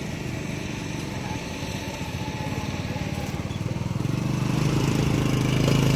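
Kubota DC75 combine harvester's diesel engine running steadily with a fast even beat, growing louder and heavier about four seconds in.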